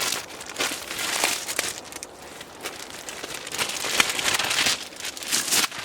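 Packaging crinkling and rustling in irregular bursts as a new stove-pipe flashing is unwrapped by hand.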